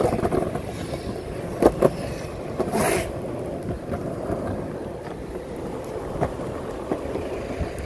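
Surfskate wheels rolling steadily over pavement, a continuous rumble, with a sharp knock about a second and a half in.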